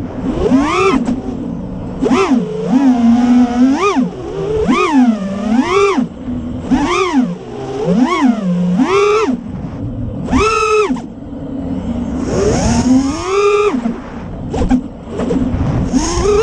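FPV quadcopter's T-Motor F40 Pro IV 2400KV brushless motors with HQ Ethix P3 props whining, the pitch swooping up and down about once a second as the throttle is pumped, with a longer high burst of throttle near the end. Wind rumbles on the microphone underneath.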